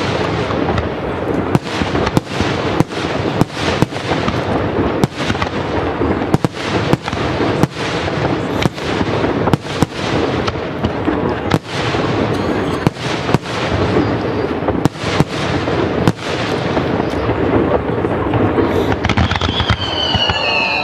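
A fireworks display: aerial shells bursting in quick, irregular succession, about two bangs a second, over a continuous dense rumble and crackle. Near the end, several high whistling tones come in.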